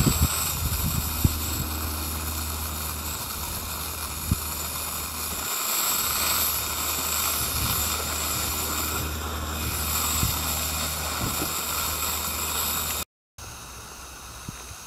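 Gas burner under a gauge 1 live steam loco's copper boiler running with a steady hissing roar while the boiler heats. There are a few light clicks in the first seconds, and the sound cuts off abruptly about 13 seconds in, then continues more quietly.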